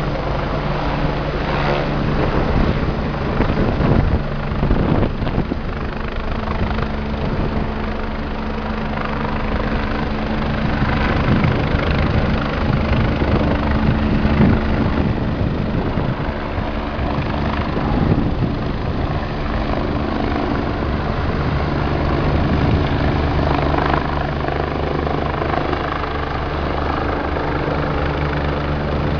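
Rescue helicopter running steadily in the air, its rotor and turbine giving a constant low drone that shifts slightly in pitch about two-thirds of the way through.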